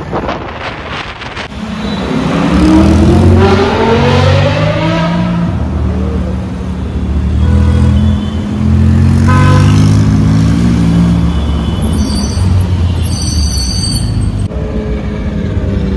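Porsche 911 Turbo revving in slow traffic: a deep exhaust note climbs in a rising rev about two seconds in, then swells and eases off again, loud throughout.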